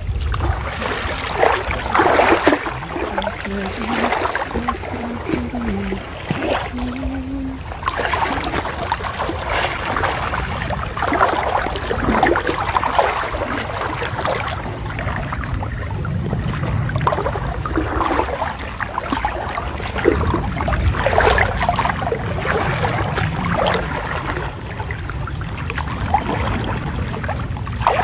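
Floodwater sloshing and swishing in irregular surges, every second or two, as people wade waist-deep through it.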